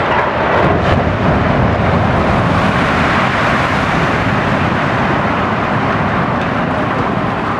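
Concrete housing block collapsing in a demolition: a loud, sustained rumble of falling building that sets in sharply, with brief crackles in the first second.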